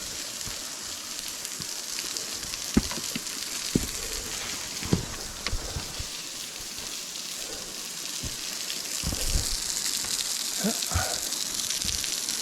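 Small waterfall splashing steadily onto rock, a continuous hiss of falling water. A few short knocks stand out from it, the loudest about three to five seconds in.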